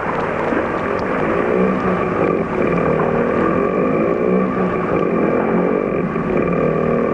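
Motorcycle engine running, its pitch rising and falling over and over as it revs up and eases off.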